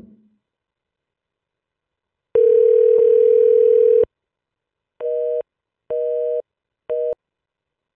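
Telephone call-progress tones from a web phone dialer placing a call. A single steady tone sounds for nearly two seconds, then three short two-pitch beeps repeat about once a second, like a busy signal.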